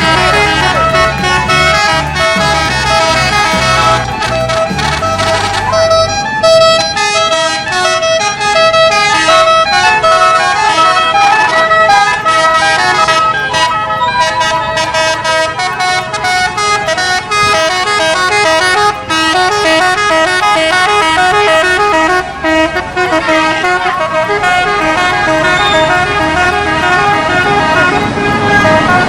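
Indonesian 'telolet' bus horns: multi-tone musical horns playing quick stepping melodies over and over, mixed with music that has a stepping bass line in the first six seconds.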